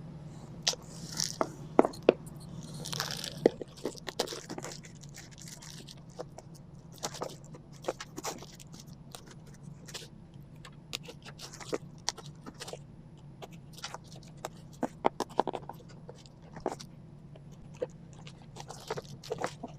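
A mailed package of plants being unboxed by hand: irregular crunches, crackles, scrapes and clicks of cardboard and packing material, over a low steady hum.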